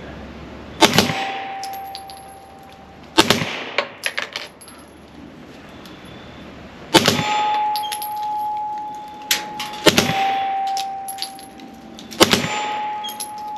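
Suppressed 9mm Glock pistol shots, about five a few seconds apart, some coming as quick pairs that the shooter calls double tapping. Each is followed by a steel target ringing with a single clear tone for a second or more.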